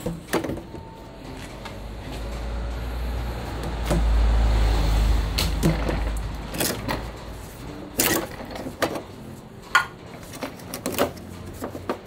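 Corrugated dust-collection hose being handled and its plastic end fitting pushed onto and pulled off a thickness planer's dust port: a series of sharp knocks and clicks, with a low rumble that swells and fades in the middle.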